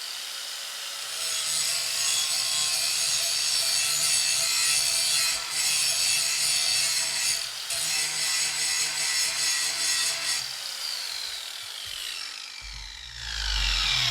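Power grinder grinding metal off the edge of a steel lawn mower blade to take weight off its heavy side and balance it. It grinds steadily for about nine seconds, then its whine falls as it winds down, and another loud stretch of noise comes near the end.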